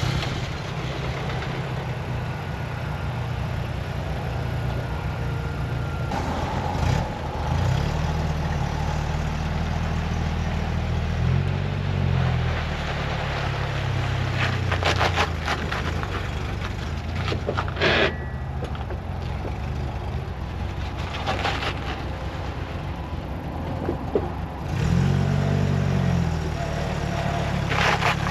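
1985 Toyota Pickup 4x4's engine running as the truck pulls away, its pitch rising and falling several times as it is revved and eased off, with a few sharp clicks in between.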